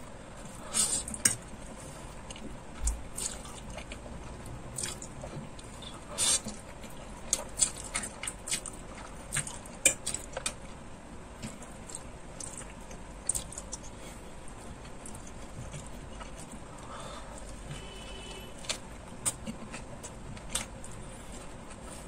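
Close-miked eating sounds: wet chewing, lip smacks and slurps of someone eating noodles, with irregular sharp mouth clicks and a brief squeak a little past the middle.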